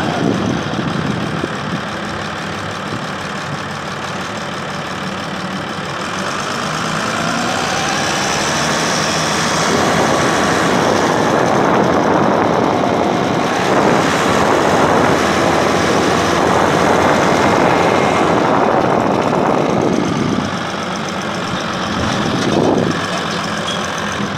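Diesel engine and running noise of a Dennis Dart bus with an Alexander ALX200 body, heard from inside the saloon. It grows louder from about six seconds in, stays loud for about ten seconds, then drops back, with a short swell near the end.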